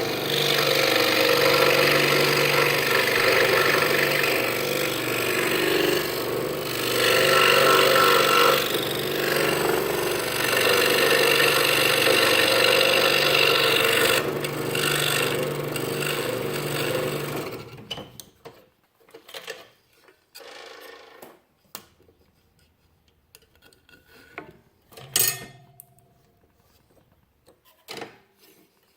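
Scroll saw running and cutting through half-inch pine with a Pegas blade, a steady buzzing saw noise. It stops about two-thirds of the way through, followed by a few faint knocks and one sharper knock.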